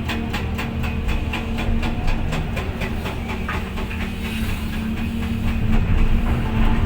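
Hydraulic breaker on a Volvo EC550EL excavator hammering rapidly, about six blows a second, over the steady hum of the excavator's diesel engine. The hammering grows weaker about halfway through.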